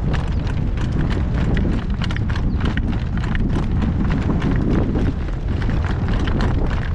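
Harness horse trotting, its hooves clip-clopping in a quick, uneven patter, with heavy wind buffeting the microphone.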